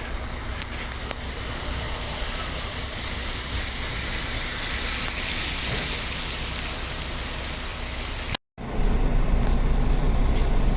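Road traffic: a passing vehicle's tyre and engine noise swells and fades. After an abrupt cut about eight seconds in, a bus engine runs with a steady low rumble.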